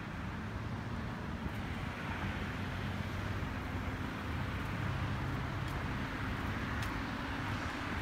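A car's engine running steadily at low speed, a low hum with road and tyre noise, as the car rolls slowly.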